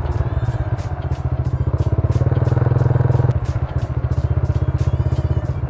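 Small motorcycle engine running steadily with a fast, even pulse, easing off about three seconds in.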